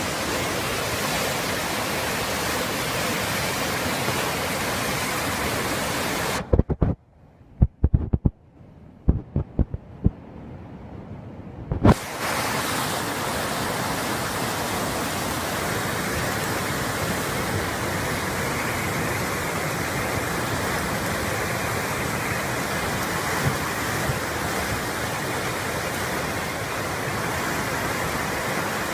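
Steady rushing roar of floodwater, an even wash of noise. About six seconds in it drops away to near quiet for roughly five seconds, broken by several sharp knocks, then the roar returns.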